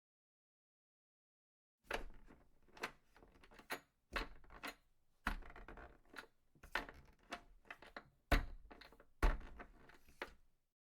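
A run of irregular clicks and knocks, roughly two a second, starting about two seconds in.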